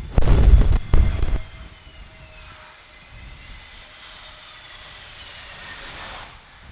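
Airliner jet engines whining on landing approach, with several tones slowly gliding in pitch. In the first second and a half, two loud gusts of storm wind buffet the microphone.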